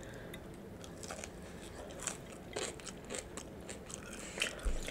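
A seasoned wedge fry being bitten and chewed, with a scatter of small, irregular crunches.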